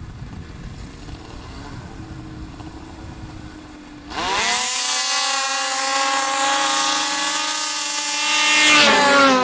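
Two two-stroke snowmobiles, an Arctic Cat M8 and a Ski-Doo Rev with an 827 big-bore kit, launching in a drag race. About four seconds in, the engines rev up sharply and hold a high, steady pitch, growing louder as the sleds come closer, then drop away just before the end.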